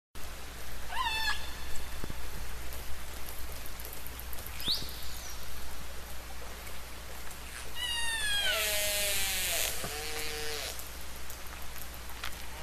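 Whale calls over a steady underwater hiss. A short falling cry comes about a second in and a rising squeal near the middle. Near the end comes a cluster of falling cries with a loud rushing hiss, then lower moans.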